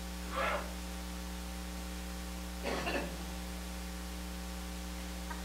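Steady electrical mains hum with a faint hiss, with two brief faint sounds rising above it, about half a second in and about three seconds in.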